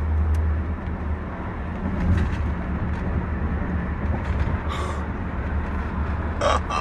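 Steady low rumble of a car heard from inside the cabin: engine and road noise.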